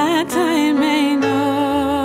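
Slow Christian song: a voice holds a sung note with vibrato over sustained accompaniment chords.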